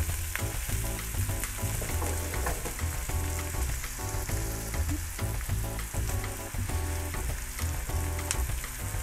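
Chopped onions sizzling as they fry in olive oil in a frying pan, stirred now and then with a silicone spatula, being browned to a deep golden colour.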